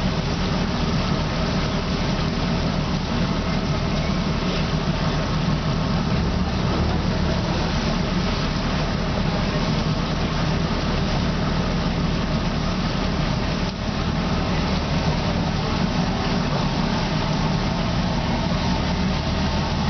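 Water taxi's boat engine running with a steady low hum, heard from on board.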